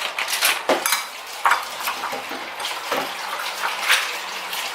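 Cutlery clinking and scraping against a plate or dish, in a run of irregular sharp clicks and scrapes.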